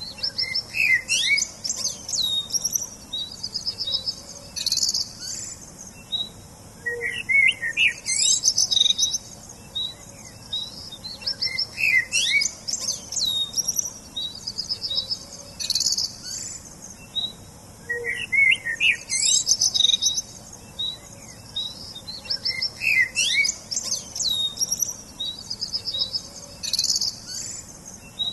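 Songbirds chirping and singing: high chirps, quick sweeping notes and trills, with the same burst of calls coming back about every four seconds.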